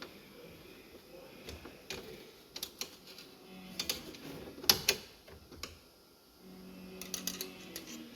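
Scattered light clicks and taps of a tool and small screws being handled while a bracket is unscrewed, with a louder tap a little under five seconds in.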